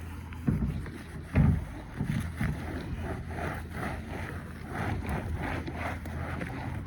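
A rag wiping and scrubbing a sheet-metal HVAC unit panel. A few thumps come first, then quick, regular strokes, a few a second. Under it all is a steady low rumble of wind on the microphone.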